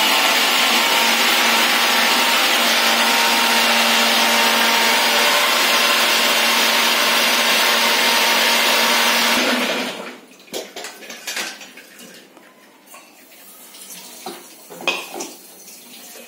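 Electric countertop mixer grinder running with its steel jar, grinding onion, green chili, ginger and garlic into a fine paste; it runs at a steady pitch and cuts off about nine and a half seconds in. After that come quieter clinks and knocks as the steel jar is handled.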